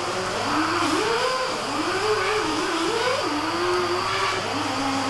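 A steady machine hum, with a person's voice rising and falling over it.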